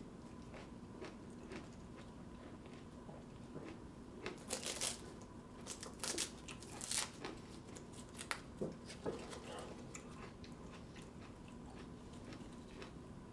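Chewing a mouthful of raw tomatillo, with bursts of dry crisp crackling in the middle as the papery husk is torn off another tomatillo.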